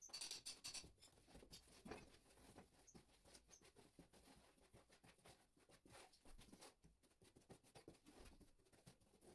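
Faint, irregular scratching and scraping of hand tools on a tiled floor and in a mortar tray, with light taps and clicks.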